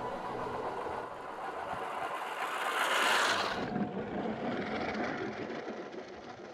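Radio-controlled 1/6-scale truck driving over grass, its motor and 3D-printed gearboxes whirring. A loud, rising hiss cuts off suddenly a little past halfway, after which the whir runs on as the truck passes close by.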